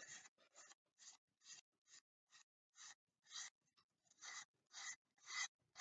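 Abrasive paper on a hand-held sanding block rubbed against a small balsa wheel to shape its domed hub and edge: faint, even scratchy strokes, about two a second.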